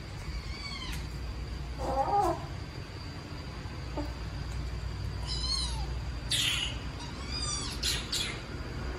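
Young kittens meowing in short, high-pitched, arching cries, about six in all. One lower, louder cry comes about two seconds in, and a quick run of high cries follows in the second half.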